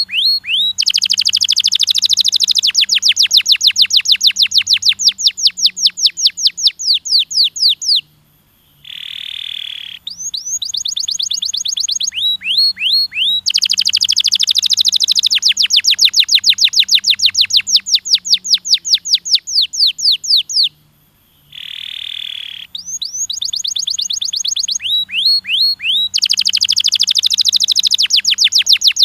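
Domestic canary singing long, fast trills of rapidly repeated high notes. Twice the song pauses briefly and gives a short harsh rolling note before the trills resume.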